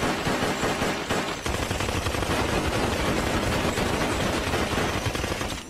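Gunfire sound effect: a rapid, unbroken barrage of overlapping shots, cutting off abruptly near the end.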